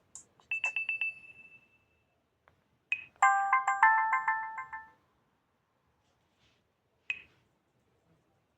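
Alcatel Pixi 3 (4) smartphone playing short built-in tone previews. A quick run of repeated beeps at one high pitch fades out over the first second and a half. About three seconds in, after a click, a fast multi-note chime lasts about two seconds. Another short click comes near the seven-second mark.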